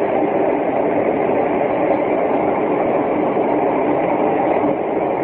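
A loud, steady rumbling drone with no clear beat or pitch: the unexplained noise that the filmer says has been going on, off and on, for hours.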